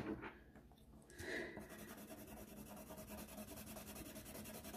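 A light knock at the start, then a coloured pencil shading on paper from about a second in: faint, quick, even back-and-forth scratching strokes.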